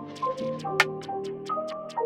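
Background music: a melody of held notes over a steady ticking beat.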